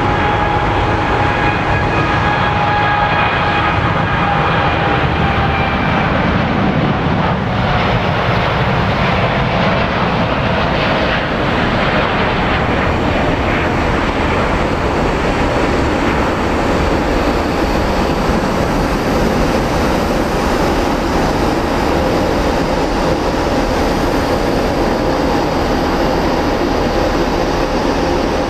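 Boeing 787-8's Rolls-Royce Trent 1000 turbofans at takeoff power through the takeoff roll and climb-out: loud, steady jet engine noise with several whining fan tones that fade after about six seconds as the airliner climbs away.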